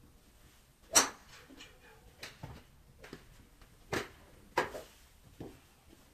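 Sharp cracks of golf clubs striking balls at other bays of a driving range: half a dozen at irregular intervals, the loudest about a second in.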